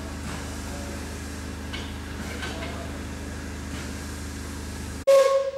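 Steady low hum and faint hiss around a steam locomotive standing at a platform. About five seconds in the hum cuts off abruptly and a short, loud sudden sound with a ringing tone follows, fading quickly.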